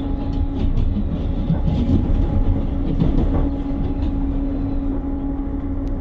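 Passenger train running along the rails, heard from inside the carriage: a steady rumble and hum with irregular clicks from the wheels.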